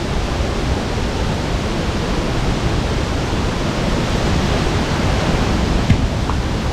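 A waterfall: rushing water making a steady, even noise, with one small knock about six seconds in.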